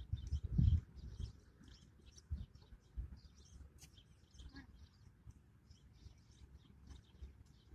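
Small birds chirping in the background, with short high chirps repeating irregularly throughout. Irregular low rumbles underneath are loudest about half a second in.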